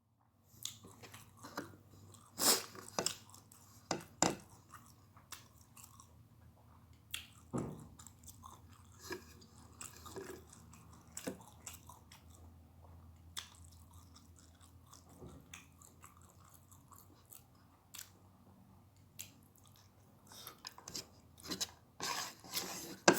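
A person eating close to the microphone, chewing a meal of rice with raw peanuts, with irregular crunches and clicks.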